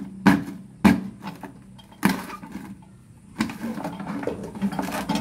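Two sharp taps on a paper-covered board in the first second, followed by crackling and rustling of paper as a hand tears and pushes through it.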